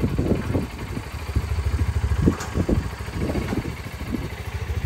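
Side-by-side UTV engine running at low speed while towing a puller tractor out of its trailer, a low uneven rumble.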